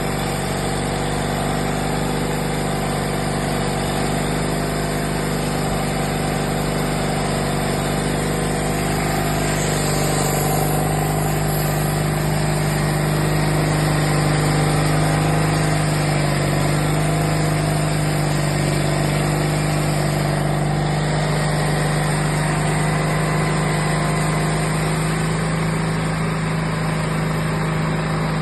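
Band sawmill running steadily while it saws through a log: a constant, even machine drone with a strong low hum.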